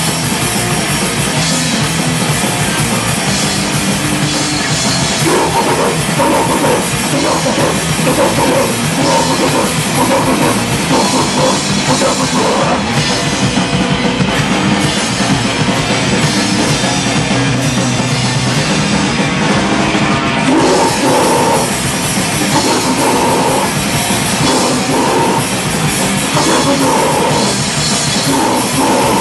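Live heavy rock band playing loud, with a pounding drum kit and distorted guitars.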